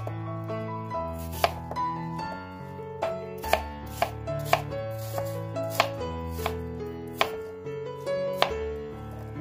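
Kitchen knife chopping peeled apple on a plastic cutting board: irregular sharp knocks of the blade meeting the board, about one or two a second. Background music with sustained notes plays underneath.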